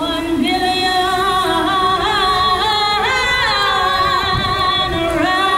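Song playback with a woman singing long, held notes with vibrato over backing music.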